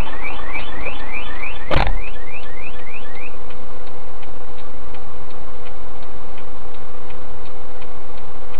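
A car alarm sounds a rapidly repeating rising whoop, about three a second, and stops about three seconds in. Shortly before two seconds there is one loud thump. After the alarm stops, a steady ticking runs at about three ticks a second, over a steady hum.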